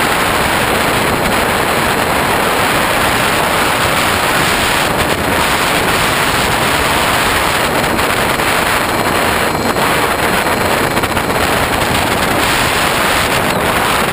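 Steady, loud rush of airflow over an onboard camera's microphone on a Hobbyking Bixler radio-controlled plane in flight. A faint whine from its electric motor and propeller sits under the rush.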